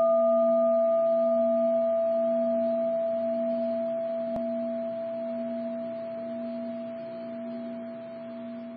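A struck singing bowl ringing out and fading slowly, a low hum under a clearer middle tone; its highest overtone dies away about halfway through.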